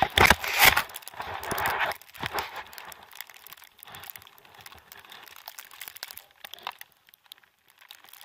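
Skis sliding through deep powder snow: loud crunching and hissing for about the first two seconds, then fainter, scattered crunches and crackle.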